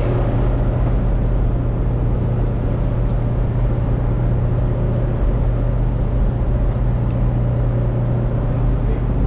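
Sportfishing charter boat's inboard engines running steadily, a low even drone with a hiss over it.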